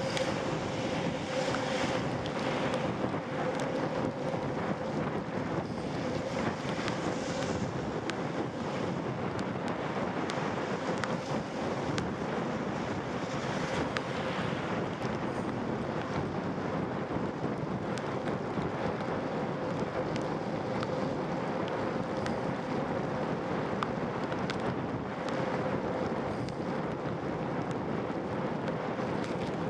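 Steady wind noise buffeting the microphone while riding a bicycle in the rain, with a faint constant hum underneath.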